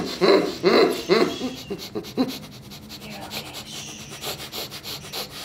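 Short, rhythmic, muffled vocal sounds, about two to three a second, that stop about a second and a half in. They give way to soft rubbing with faint creaks, as of a hand moving over leather.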